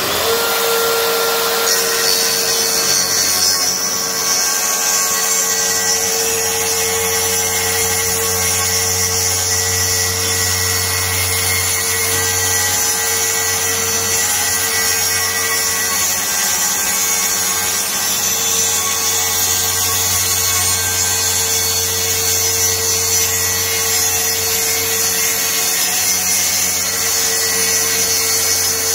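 Makita SP6000 electric plunge saw running and cutting a plywood sheet along its guide rail, a loud, steady whine held throughout.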